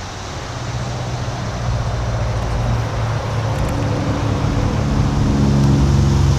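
An engine running steadily with a low hum, growing louder as it approaches.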